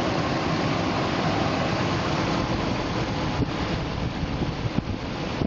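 A Dodge Ram's 4.7-litre V8 idling, heard close up under the hood as a steady running sound, while the warm engine circulates coolant so that trapped air can be bled from the system.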